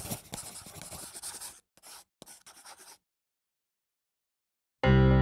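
Scratchy strokes of lines being drawn on paper, quick and dense at first, then a few short strokes that stop about three seconds in. Music with sustained tones comes in suddenly near the end.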